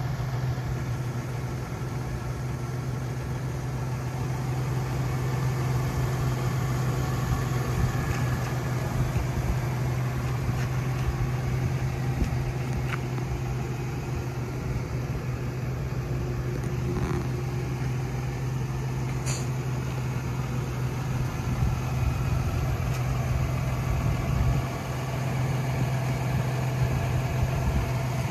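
Toyota pickup's engine idling steadily, a constant low hum and rumble.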